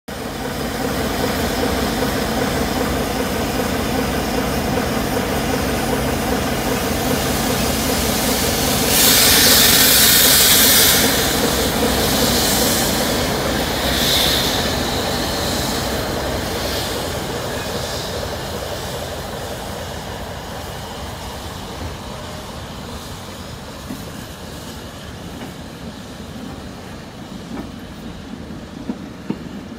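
A train double-headed by a steam locomotive and a diesel locomotive pulling out. The diesel's engine runs steady and loud at first, with a loud hiss of steam from about nine to eleven seconds in. The sound then slowly fades as the carriages roll by, with a few wheel clicks over rail joints near the end.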